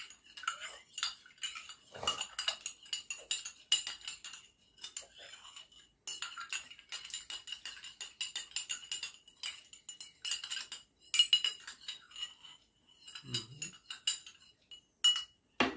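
A spoon stirring sugar into water in a glass tumbler: quick, repeated clinks of the spoon against the glass, with a faint ringing tone. There is a sharper clink near the end.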